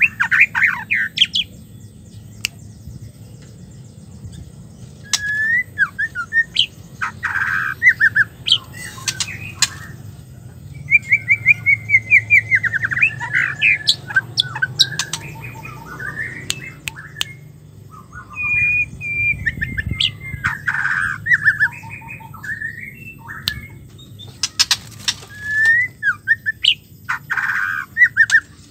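Female white-rumped shama (murai batu) calling in repeated bursts of quick, harsh chattering and trilling notes, the phrases broken by short pauses, with a few sharp clicks among them.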